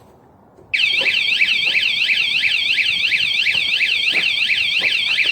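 Cruxer wireless motion-sensor bike alarm set off, sounding a fast, warbling electronic siren that switches on abruptly about a second in and keeps going.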